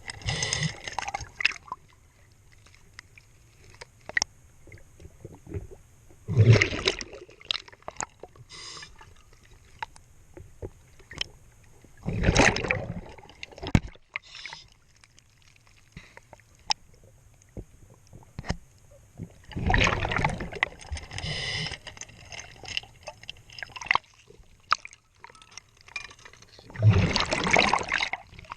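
Underwater scuba diver's regulator exhaling: a gurgling rush of bubbles every six to seven seconds, in time with the diver's breathing, with faint scattered clicks and taps in between.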